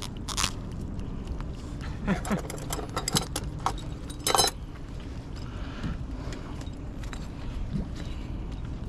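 Steady low hum of the boat's idling engine, with scattered short clicks and rattles, mostly between about two and four and a half seconds in, as a live spiny lobster is handled in gloved hands.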